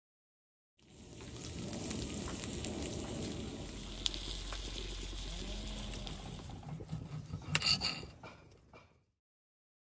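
Meat sizzling and crackling in a cast-iron grill pan, with a few sharp clicks of a knife and tongs on a slate board near the end.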